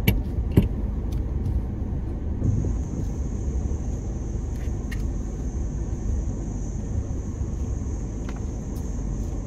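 Suzuki Jimny's engine running low and steady, heard from inside the cabin as the car crawls over rocks and soft sand, with scattered knocks and clicks, two of them near the start.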